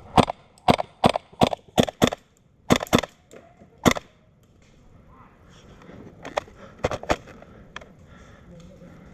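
Airsoft rifle firing single shots in quick, uneven succession, about nine sharp cracks in the first four seconds, then a few more scattered shots later.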